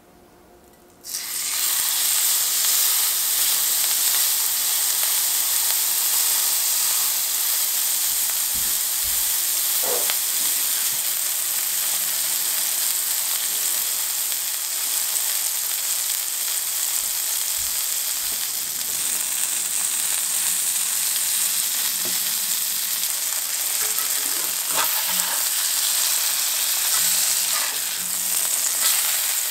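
Salted ground-beef burger patty searing in hot fat in a cast iron skillet. The loud sizzle starts suddenly about a second in, as the patty hits the pan, and then carries on steadily.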